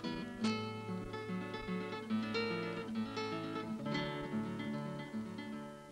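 Background music on acoustic guitar, a run of plucked notes, fading out near the end.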